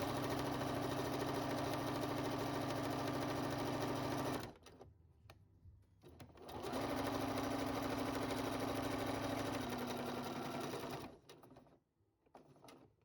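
Electric sewing machine stitching a straight seam through two layers of quilting cotton, running at a steady speed in two runs of about four and a half seconds each, with a short pause between them. It stops a couple of seconds before the end.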